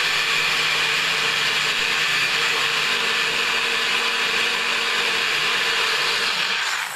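NutriBullet 900 series blender running steadily as it blends soaked tigernuts and water into a paste. The motor stops suddenly near the end.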